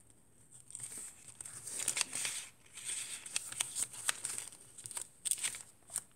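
Paper pages of a handmade junk journal rustling and crinkling as they are handled, in irregular bursts with small clicks, starting about a second in.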